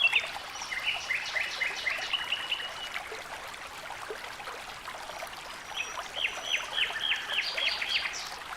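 Waterfall water falling and splashing steadily, with a small bird singing two runs of quick repeated chirps: one at the start lasting about three seconds, and another from about six seconds in.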